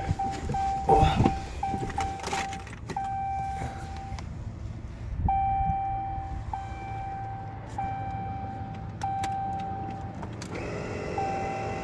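The 2015 Dodge Ram 1500's dash warning chime beeps over and over in beeps of uneven length, with clicks and the jingle of the ignition key, so the truck's electrics have power even though it does not start. About ten seconds in, a steady electric hum comes on.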